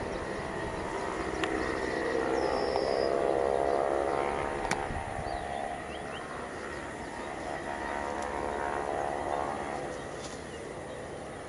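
Aircraft engines running: a steady high whine over a many-toned droning hum that swells, dips and swells again. Faint bird chirps come through now and then.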